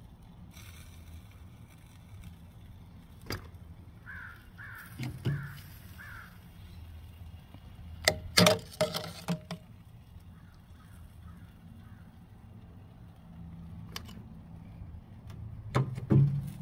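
Metal tongs clinking and knocking against a stainless steel pot while a chicken leg is dipped in barbecue sauce, a cluster of sharp clicks about eight seconds in and again near the end. A bird calls about four times in the background around the fifth second.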